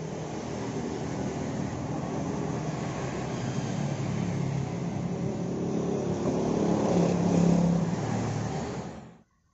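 A motor vehicle engine running steadily, growing louder about seven seconds in, then cutting off abruptly near the end.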